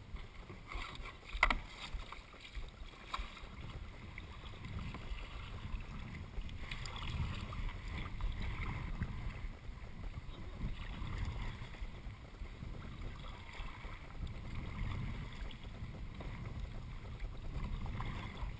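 Kayak paddle strokes splashing and dripping beside a sit-on-top kayak, over a low, uneven rumble. There is a sharp knock about one and a half seconds in.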